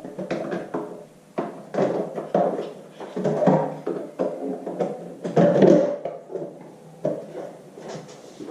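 Hard plastic RC truck body being handled and pressed down onto the chassis. A run of irregular knocks, clicks and rustles as the magnetic body mounts catch.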